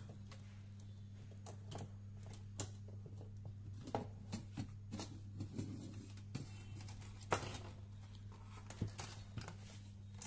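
Scattered clicks, knocks and rattles of a circuit board and its wiring being worked loose from a CRT monitor's metal chassis and set down on the bench, the loudest knock about seven seconds in. A steady low hum runs underneath.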